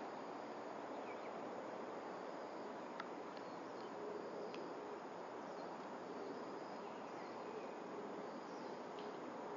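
Steady outdoor hiss with insects chirring high, and a few faint short high chirps scattered through it.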